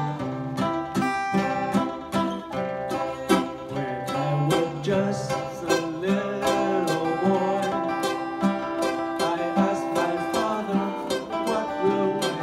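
Acoustic guitar strummed in a steady rhythm as accompaniment, with a man singing a melody into a microphone over it.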